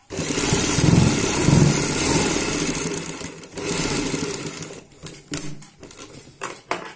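Sewing machine stitching in a fast continuous run, starting abruptly and stopping about five seconds in, followed by a few sharp clicks as the fabric is handled at the machine.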